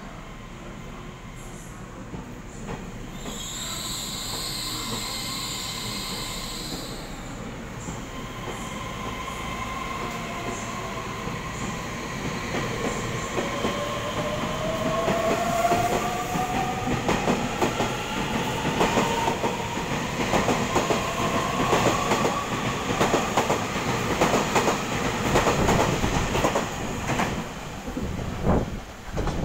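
EMU3000 electric multiple unit pulling out and accelerating past: the whine of its traction motors rises steadily in pitch while the wheels click over the rail joints, getting louder as it gathers speed.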